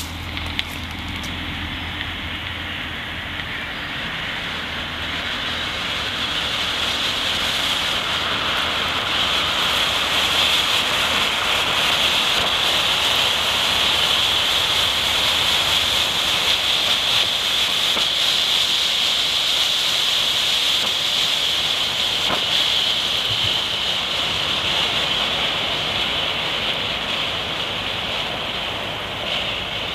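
Enola Gaye Wire Pull smoke grenade burning, a loud, steady hiss of smoke jetting out. It grows louder over the first ten seconds or so, then eases slightly.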